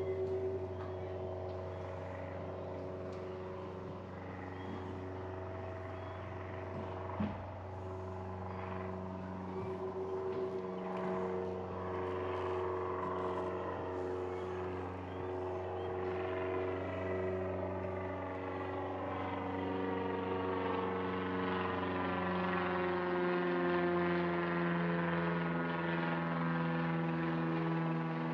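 An engine drones steadily with a low, even hum, growing louder over the second half as its pitch slowly falls. A single sharp knock sounds about seven seconds in.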